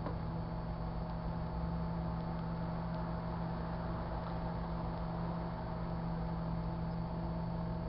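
Sharp Carousel microwave oven running with a steady, unchanging hum while it heats a load of plastic pens.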